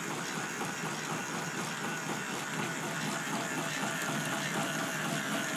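A K'nex electric motor driving plastic gears and a chain loop, running with a steady mechanical rattle. The chain does not run smoothly over the red gears, as the builder notes.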